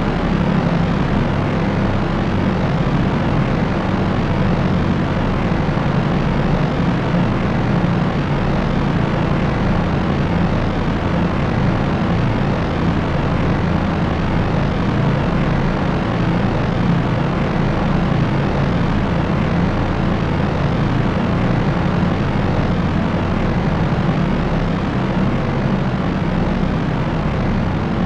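Steady, unchanging drone of a propeller aircraft's engines and propellers: a low hum with an even hiss above it.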